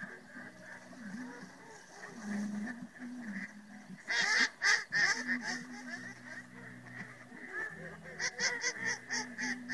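A large flock of geese calling, a dense chorus of overlapping honks. Bursts of loud, rapid honking come about four seconds in and again near the end.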